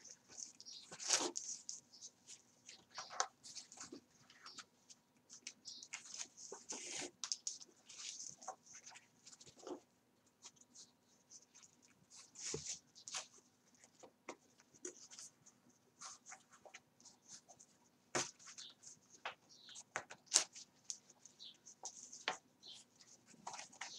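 Soft handling noise of paper and card pages as thread is pulled through and looped around the stitching holes: scattered short scrapes, rustles and light clicks.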